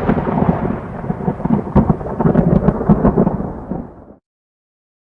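Thunder sound effect: a loud rolling rumble with sharp crackles, cut off abruptly about four seconds in.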